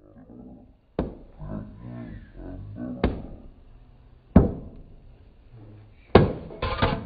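Hand strikes on white masonry blocks: single sharp knocks about a second, three seconds and four and a half seconds in, then a louder strike about six seconds in followed by a quick clatter of broken blocks hitting the ground.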